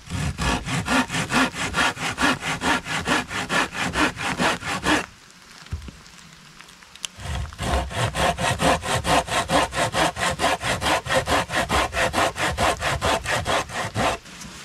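Small hand saw cutting through a wooden branch in quick back-and-forth strokes. It saws for about five seconds, stops for about two, then saws again until shortly before the end.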